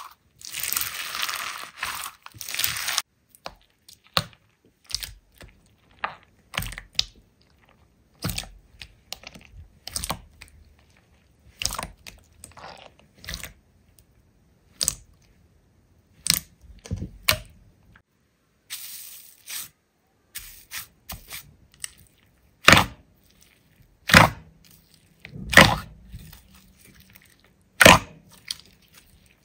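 Slime being squeezed and pressed by hand, giving irregular sharp crackling pops and squishes. A dense run of crackling comes first, then single pops at uneven intervals, the loudest near the end.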